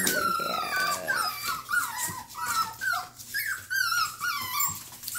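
Young Norwegian Buhund puppies whining and yipping in a rapid string of short, high, wavering cries.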